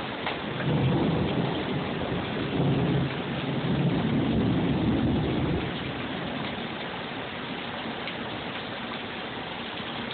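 Rolling thunder rumbling for about five seconds over a steady hiss of heavy rain. The rumble dies away a little before the middle, leaving the rain.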